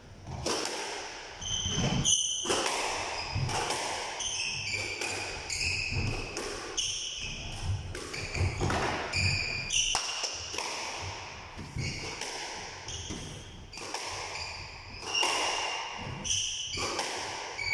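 A squash rally: the ball is struck by rackets and smacks off the court walls in sharp hits every half second to second. Short high squeaks, typical of players' shoes on the court floor, come between the hits.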